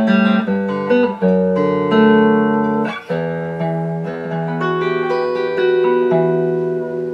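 Fender Road Worn Telecaster electric guitar playing a run of chords and single notes, each left to ring and changing about every second, with a fresh strike about three seconds in and the last chord fading. The strings are being checked for tuning and intonation after a fret dress, compensated nut and filed compensated saddles.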